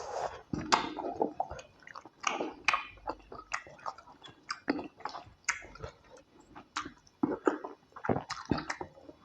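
Close-miked wet chewing and mouth smacks of a person eating tilapia pepper soup with white starch: many short, irregular smacks, a few each second.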